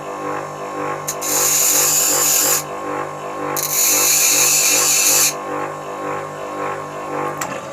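Grinder motor running with a steady hum while a steel screwdriver tip is pressed against the wheel twice, each a grinding hiss of about a second and a half, reshaping the worn flat blade.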